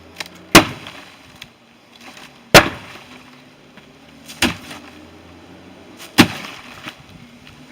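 Four sharp, heavy strikes at a steady pace about two seconds apart, each with a short ringing tail, like a tool striking repeatedly during outdoor work.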